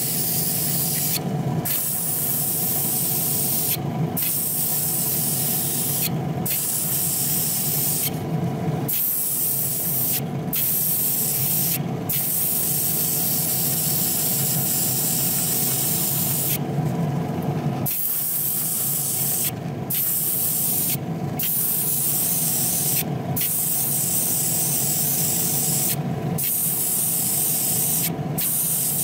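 Small gravity-feed spray gun spraying red automotive base coat onto a diecast model car body: a steady hiss of air and paint in passes, cut by brief pauses every couple of seconds as the trigger is let go, over a steady low hum.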